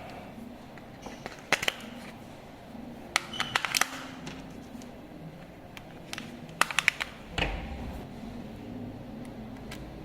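Handling of a toy RC climbing car: scattered sharp clicks and knocks, several in quick little clusters, with a duller knock near the end, over a faint steady low hum.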